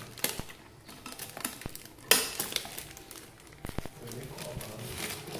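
Clear plastic wrapping, glued onto a cardboard box, crinkling and rustling as it is pulled and cut with scissors, with small scattered clicks and a louder crackle about two seconds in.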